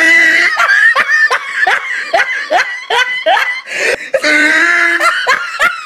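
A person laughing hard in a quick run of short 'ha' bursts, with longer drawn-out voiced sounds at the start and again about four seconds in.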